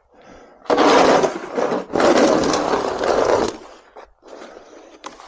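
Snow shovel scraping along pavement: two long pushes back to back, starting about a second in.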